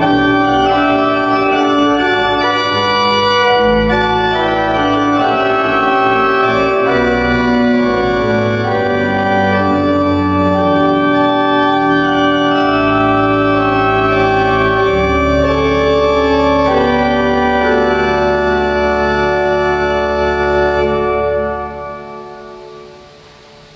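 Church organ playing sustained chords on manuals and pedals, closing on a long held chord over a deep pedal note. The chord releases about three seconds before the end and the church's reverberation dies away.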